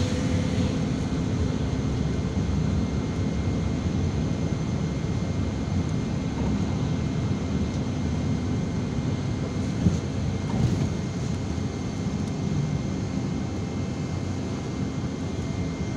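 Irisbus Citelis 12 m city bus heard from inside the cabin while driving: a steady low engine and road rumble, with one short knock about ten seconds in.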